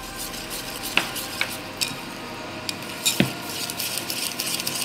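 Wire whisk beating thick pukis batter in a glass bowl, its wires clicking against the glass. A few separate taps come first, then a quicker, steady run of taps near the end.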